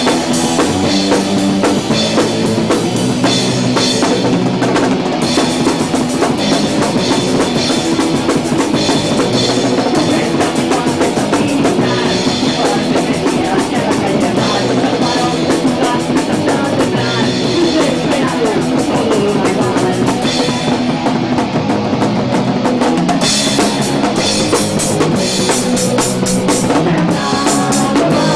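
Punk rock band playing live: a drum kit with busy cymbals driving the beat under guitar. About two-thirds of the way through the cymbals drop out for a couple of seconds, then come crashing back in.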